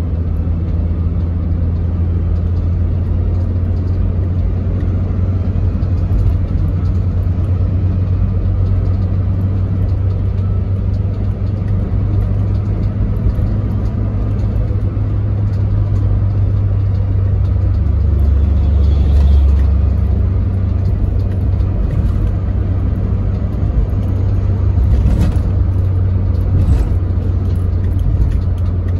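Steady low rumble of tyre and engine noise heard inside a car's cabin while it cruises on a highway, swelling briefly about two-thirds of the way through.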